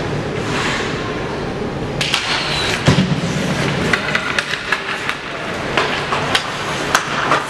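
Ice hockey play: sharp clacks of sticks and puck, scattered irregularly from about two seconds in, over a steady background hum of the rink.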